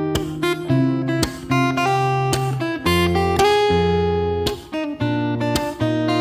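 Background music on acoustic guitar: plucked and strummed chords over bass notes that change every second or so.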